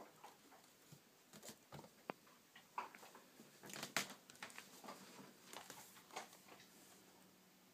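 Faint, scattered light taps, scratches and rustles of a kitten playing on a wooden floor and against a mesh laundry hamper, with the loudest rustle about four seconds in.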